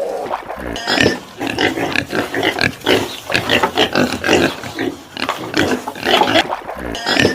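A rapid run of short animal calls, several a second, with a few brief gaps.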